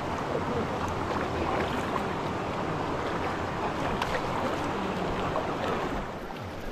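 River water rushing steadily around a raft.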